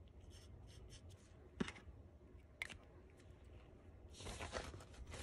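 Black Sharpie felt-tip marker drawing short strokes on small paper petals: faint scratching, two sharp ticks about a second apart, and louder, quicker scratching near the end.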